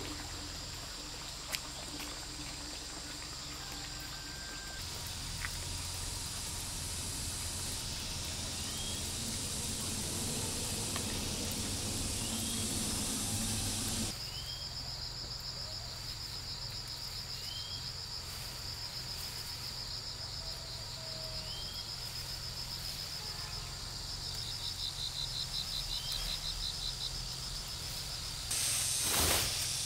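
Insects trilling steadily in rapid pulsing trains, with a short chirp repeating every couple of seconds. A hiss underneath cuts off suddenly about halfway through.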